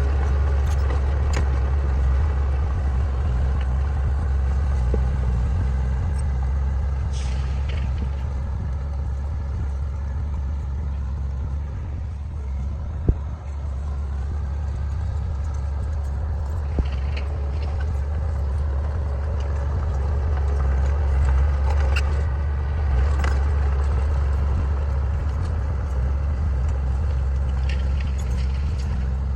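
Diesel engines of a bulldozer and road roller working, a deep steady drone whose pitch shifts around the middle. A couple of sharp clicks and a few short hissing bursts come now and then.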